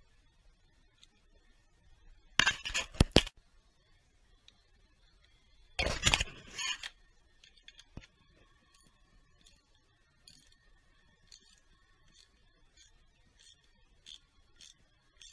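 Metal tools and parts clinking against each other in two short loud clatters, a few seconds apart, as they are handled around a diesel engine's injectors and fuel lines. Faint, even ticking about twice a second follows.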